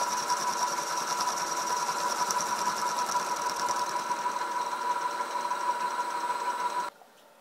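Milling machine end mill cutting the top face of a metal block under coolant: a steady machining whine with a fine rapid flutter, which stops abruptly near the end.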